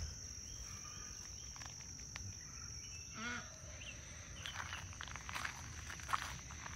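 Insects making a steady high-pitched buzz throughout. From about four seconds in, footsteps crunch on a gravel path.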